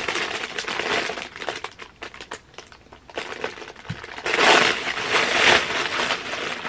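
Packaging crinkling and rustling as a sweater is unwrapped and handled, with a louder stretch of crinkling about four and a half seconds in.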